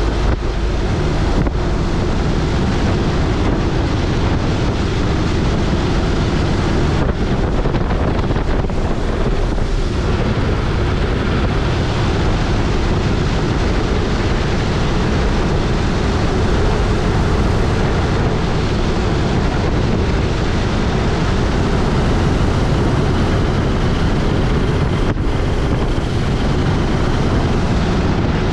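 Steady drone of a Raj Hamsa X-Air Hanuman ultralight's engine and propeller heard from inside its open cockpit, buried in heavy wind rush over the microphone.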